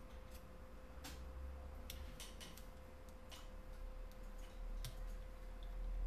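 Scattered small plastic clicks and snaps as fingernails pry the rear housing off a Samsung Galaxy S3 mini, its clips releasing one by one, with several close together about two seconds in. A faint steady hum runs underneath.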